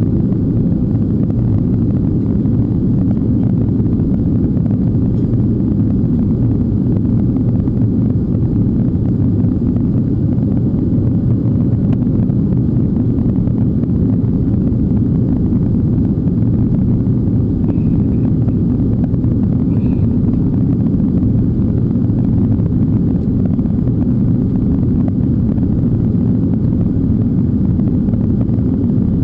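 Steady low rumble of engine and airflow noise inside a jet airliner's cabin on approach, heard at a window seat.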